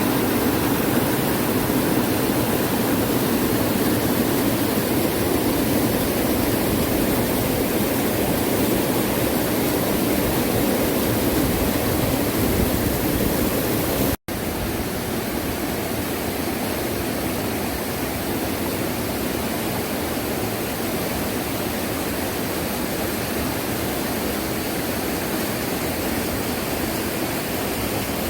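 Mountain valley stream rushing steadily. It breaks off for an instant about halfway through and comes back a little quieter.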